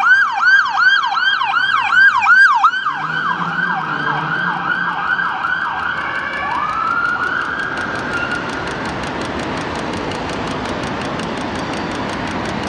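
Ambulance's Whelen electronic siren sounding a rapid yelp, its sweeps repeating about three times a second. The pattern changes about two and a half seconds in, and at about six seconds a single tone rises and holds briefly before the siren cuts off. After that comes a steady rolling street and tram noise with a fast regular ticking.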